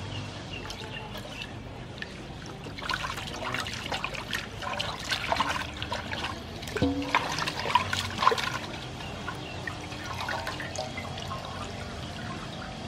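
Water sloshing and splashing irregularly in an aluminium basin as a whole raw chicken is rubbed and turned over in it by hand.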